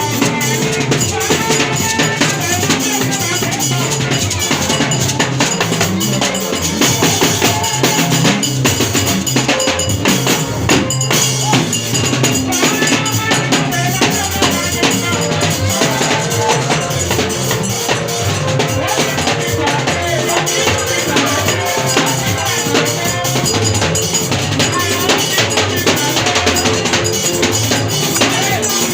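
Music with a drum kit and percussion keeping a busy, steady beat throughout, loud and without a break.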